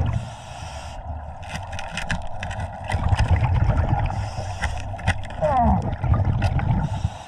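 Scuba breathing heard underwater: hissing breaths through the regulator at the start, about four seconds in and at the end, over a steady rumble of exhaled bubbles. A run of sharp clicks and knocks comes between about one and a half and three seconds in, as a chrome hubcap is worked loose from between rocks.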